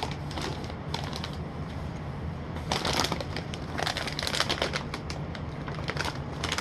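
Crisp clicking and crackling of crunchy kettle popcorn being chewed and handled, sparse at first and much busier from about two and a half seconds in, over a steady low hum.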